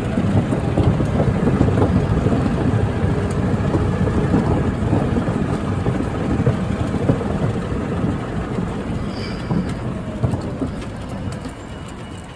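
A small vehicle riding along a wooden pier boardwalk: a steady low rumble of motor and wheels on the planks, mixed with wind on the microphone, dying down over the last few seconds.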